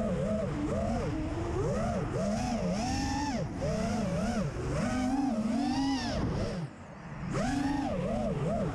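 FPV quadcopter's electric motors and propellers whining, the pitch swooping up and down over and over with the throttle. The sound drops away briefly about two-thirds in, then comes back.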